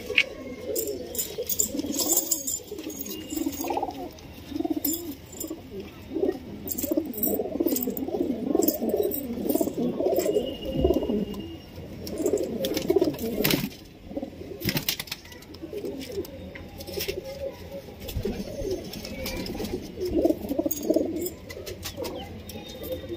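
A flock of domestic pigeons cooing, many overlapping low warbling coos, with scattered sharp clicks throughout.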